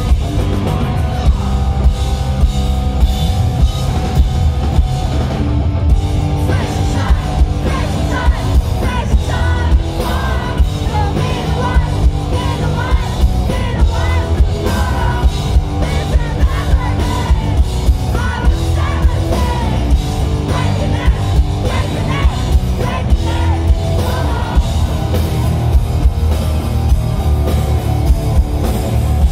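Live pop-punk band playing loud: pounding drum kit with bass and electric guitar, and a lead vocal sung over it from about six seconds in until a few seconds before the end.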